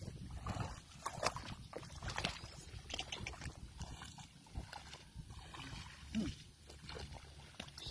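A water buffalo moving through a flooded, muddy rice paddy, its steps sloshing and splashing irregularly in mud and water. A short low call comes about six seconds in.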